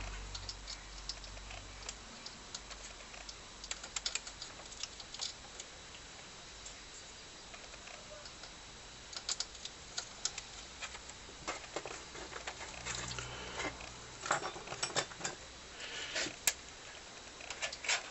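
Scattered light clicks and taps in irregular clusters, like small objects being handled or buttons pressed, over a faint low hum.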